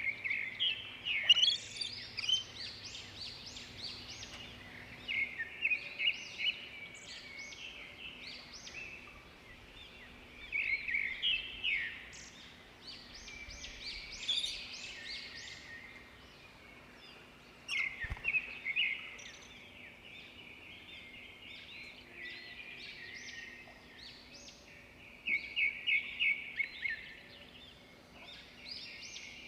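Songbirds chirping and twittering in repeated bursts of quick high notes, with quieter gaps of a few seconds between bursts.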